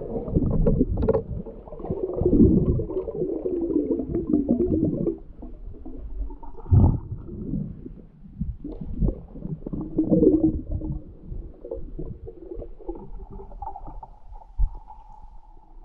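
Muffled underwater sound picked up by a GoPro in its waterproof housing: water gurgling and sloshing past it, with many dull knocks and bumps. It is loudest in the first few seconds and quieter later.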